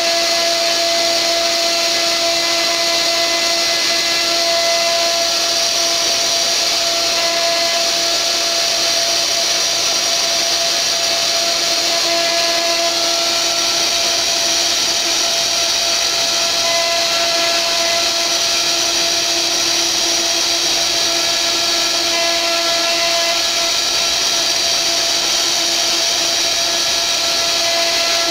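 Mini CNC router's spindle running with a steady whine as its 4 mm bit mills a relief into a wooden panel, with a constant hiss of wood being cut.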